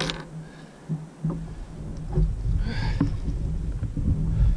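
Low wind rumble on the microphone, with scattered knocks and a brief scraping rustle about two and a half seconds in, from handling a fish on a plastic kayak.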